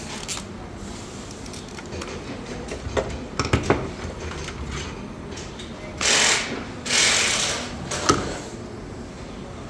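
Handling noise of metal parts, a cluster of clicks and knocks, then two loud bursts of hiss, a short one and a longer one, with another knock after them.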